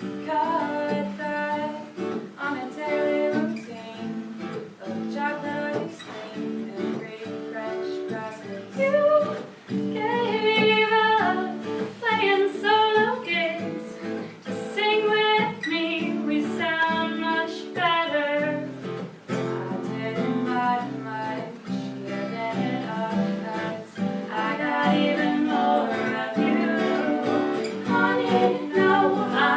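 Women singing a folk-pop song over a strummed acoustic guitar.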